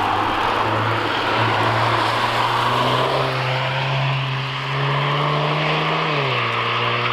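Car engine under load, its note slowly rising in pitch and then dropping sharply about six seconds in, over a steady hiss.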